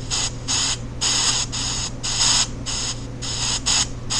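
Pink noise from a ghost-hunting EVP app, chopped into uneven on-off bursts about two to three times a second, some louder and some softer, over a steady low hum.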